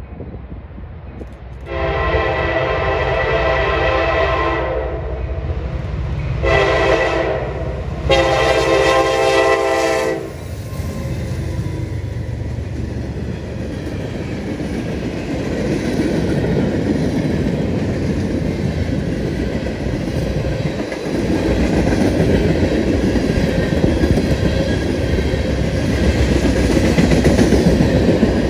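Air horn of a freight train's lead EMD SD70MAC locomotive sounding a long blast, a short blast and another long blast. Then a long string of freight cars rolls past on the rails with a steady noise that grows louder in the last third.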